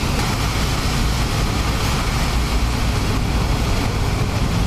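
A motor yacht's engines and stern propulsion running steadily while it manoeuvres stern-to at a quay, churning the water. The result is a continuous low drone under the wash of the water.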